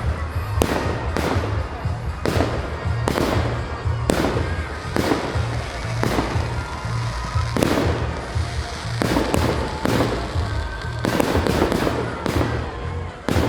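Fireworks display: a rapid, irregular series of aerial shell bursts, more than a dozen bangs with a quick cluster of several near the end, over music playing underneath.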